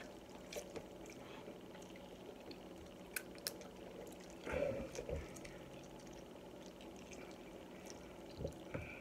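Quiet eating of spicy instant noodles with forks from bowls: faint wet slurping and chewing, a couple of light clicks a little after three seconds in, and a short vocal murmur about halfway through.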